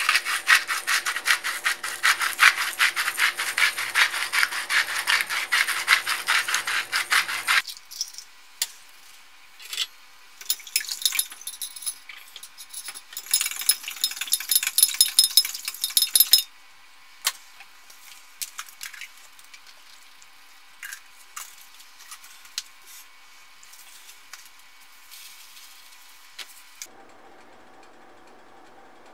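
Several seconds of rapid, loud rasping strokes, then a fork beating an egg in a glass measuring cup: quick clicks and scrapes against the glass. Scattered light taps and clinks follow.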